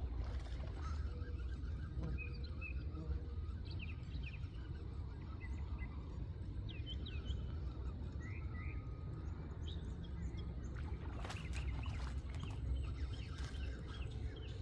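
Scattered short bird chirps over a steady low rumble of outdoor background noise, with a few sharp clicks near the end.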